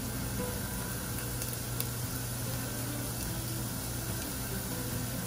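Diced onion and minced garlic frying in butter in a pan over medium heat, a steady gentle sizzle.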